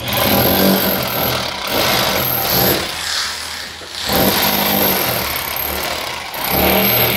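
Rotary hammer chiselling out a chase in a plaster and concrete wall for cable conduit. It runs in four bursts with short pauses, with a high motor whine under the chipping.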